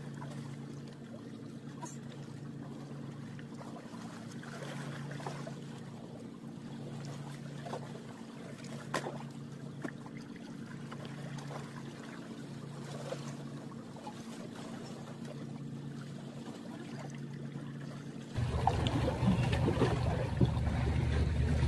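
Low, steady engine hum of a boat on the water, swelling and fading about every two seconds, with a few faint clicks. Near the end it gives way abruptly to louder wind and water noise.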